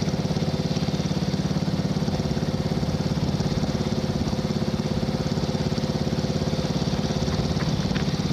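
Riding lawn mower's small engine running at a steady speed, its firing pulses even and rapid.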